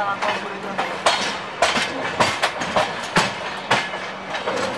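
Train wheels clattering over rail joints and points as the coach rolls through a station yard: sharp, uneven clacks about twice a second over a steady low hum.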